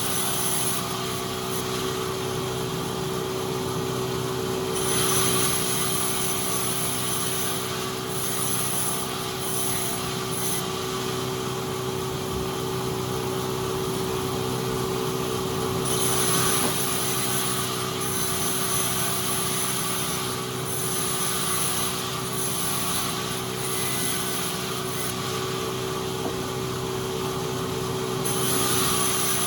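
Sawmill saw running with a steady machine hum, growing louder and harsher in several stretches of a few seconds each as the blade cuts through wood.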